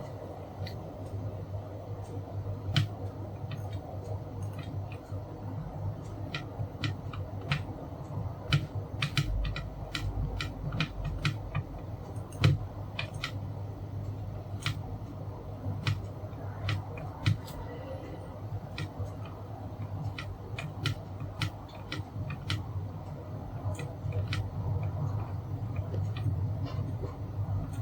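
Irregular small clicks and taps of tools and small parts being handled on a workbench during an electronics repair, over a steady low hum.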